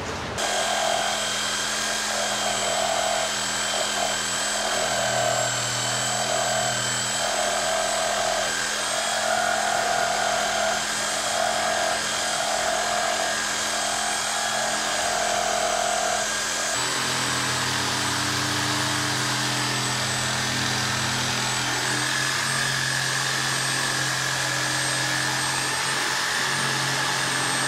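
Corded power saws running under load while cutting into plywood, a steady whine with a pulsing note roughly once a second in the first part. About two-thirds through the sound changes to a reciprocating saw running steadily as it cuts through plywood.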